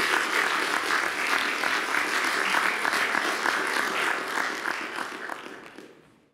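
Audience applauding, a dense crackle of many hands clapping that fades out near the end.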